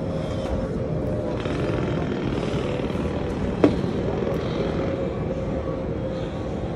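Steady outdoor rumble with a faint steady hum, and one sharp click a little past halfway through.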